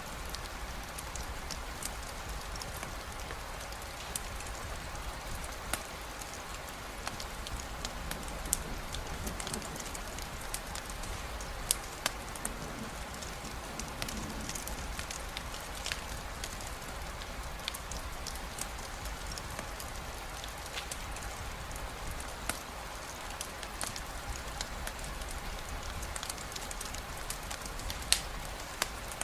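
Steady rainfall hiss with a crackling campfire: scattered sharp pops and snaps throughout, a few louder ones about twelve seconds in and near the end.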